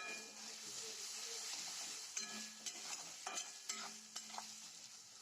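Onions and ground spices sizzling in hot mustard oil in a kadai as they are stirred and fried, the spatula knocking against the pan a few times about halfway through. The sizzle softens near the end.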